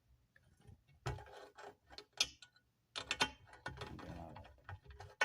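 Metal tubes and fittings of a corner glass shelf being handled and fastened together: irregular clicks and knocks with a stretch of scraping in the middle and a sharper knock near the end.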